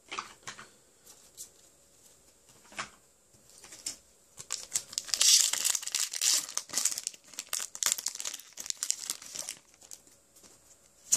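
Foil wrapper of a Pokémon Phantom Forces booster pack crinkling and tearing as it is opened by hand. The first few seconds are quiet with a few soft ticks, and the crinkling starts about four and a half seconds in and runs until near the end.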